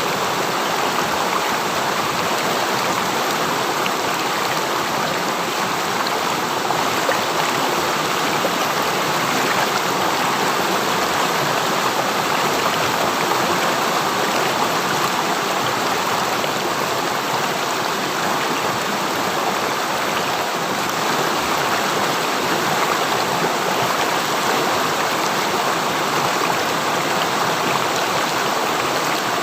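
A river stream running, a steady rushing and babbling of flowing water with no breaks.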